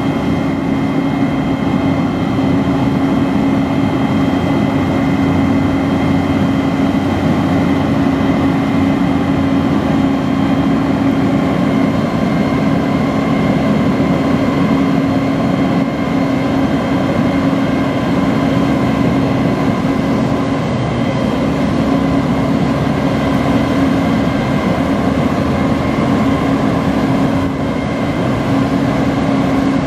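Diesel engine of a 2007 Peterbilt 340 crane truck running steadily, powering the hydraulics of its 26-ton crane as the boom extends and the hook rises. It is a steady hum at one pitch with fainter, higher steady whines above it.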